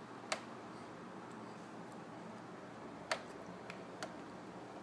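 A few short, sharp clicks from spoon-feeding a baby cereal, over faint room noise: one just after the start, the loudest about three seconds in, then two fainter ticks soon after.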